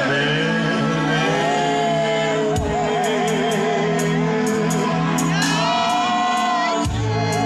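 Gospel worship singing, voices wavering in vibrato over sustained keyboard chords. About two and a half seconds in, a steady high ticking percussion beat joins.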